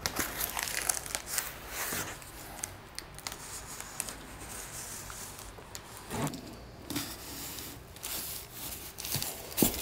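Large cardboard shipping boxes being handled and turned: scattered scrapes, rubs and knocks of cardboard, the loudest near the end.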